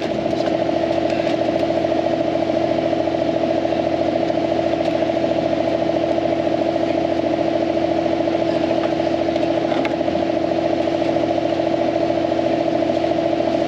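Tracked mini loader running at a steady speed: a continuous engine drone with a steady whine that does not change.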